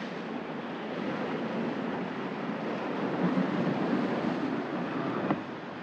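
Ocean surf breaking and washing over a rocky shoreline: a steady rushing hiss that swells a little about halfway through, with a brief knock near the end.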